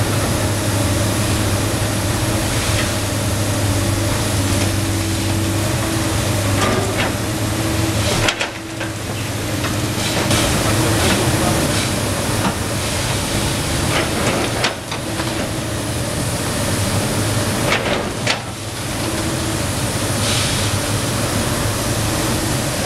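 Komatsu PC290 NLC hydraulic excavator's diesel engine running steadily under load, with a hydraulic whine that rises and falls as the arm works. Its demolition grapple crunches through masonry walls, with several sharp cracks and clatters of falling rubble, over a steady hiss of water spray.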